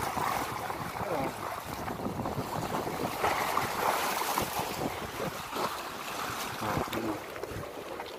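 Sea waves washing against a concrete block breakwater, with wind buffeting the microphone.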